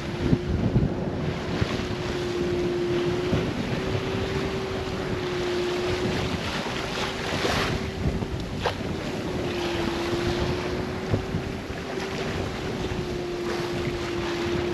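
Wind buffeting the microphone and sea washing past a sailboat under way, under a steady low hum, with a couple of sharp knocks in the second half.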